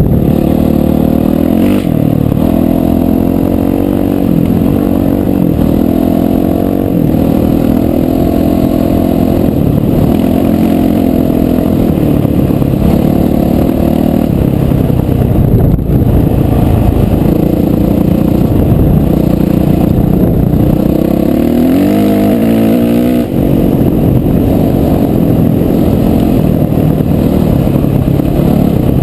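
Off-road motorcycle engine running under load while ridden, its pitch rising and falling with the throttle. It revs up sharply about three-quarters of the way through, then drops off suddenly.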